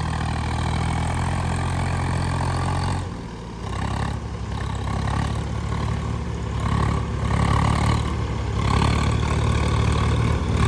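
Diesel tractor engine running steadily. It drops back briefly about three seconds in, then picks up again and runs louder toward the end.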